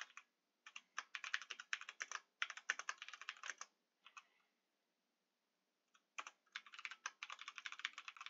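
Computer keyboard typing: a quick run of keystrokes about a second in that lasts roughly three seconds, a pause, then a second run starting about six seconds in.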